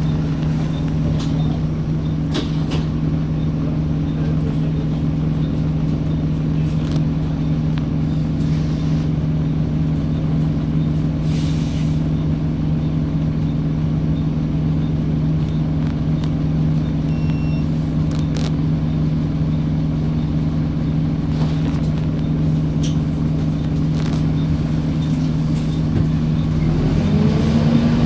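A large vehicle's engine running steadily with a low hum. Brief high squeals come twice, and near the end the engine note rises as it revs up.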